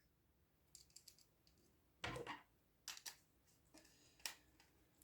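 A few short clicks and scrapes of a screwdriver tightening a wire into the terminal screw of a push button, with the plastic button and wires being handled. The quiet spells between them are broken by a sharper click near the end.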